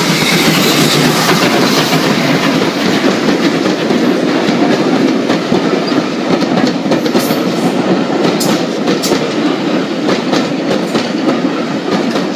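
Passenger coaches of a steam-hauled train rolling past close by: a loud, steady rumble of wheels on rail with scattered sharp clicks as they pass over the rail joints, loudest in the first couple of seconds.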